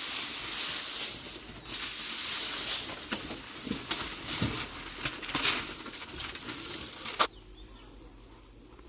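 Rustling and swishing noise with scattered knocks, ending on a sharp click about seven seconds in, after which it goes much quieter.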